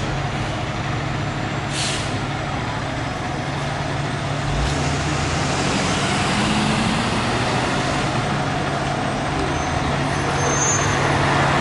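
A fire engine's diesel engine runs with a steady low hum that grows louder as the truck rolls out of the bay. About two seconds in there is a short hiss of air from the air brakes.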